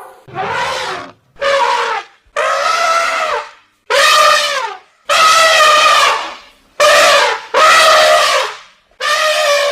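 Elephant trumpeting: a series of about eight loud calls, each well under a second to about a second and a half long, with short silent gaps between them; several drop in pitch as they end.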